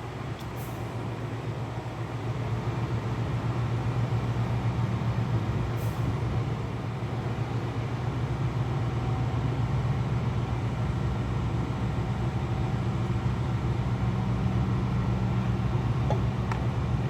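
Steady low hum of running industrial machinery, rising slightly in level a few seconds in, with a couple of faint clicks.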